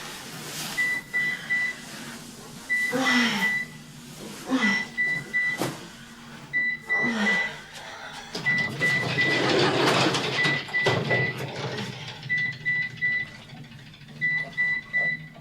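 Digital alarm clock beeping at one high pitch in short groups of three or four beeps, repeating every second or two. Between the groups come short groans that fall in pitch, and a longer noisy stretch runs through the middle.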